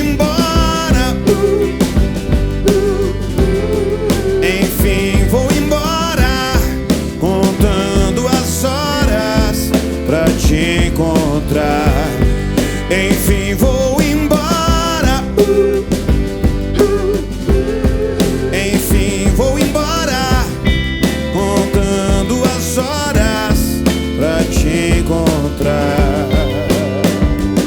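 Live rock band playing a song: a steady drum beat under guitars and a wavering melodic lead line.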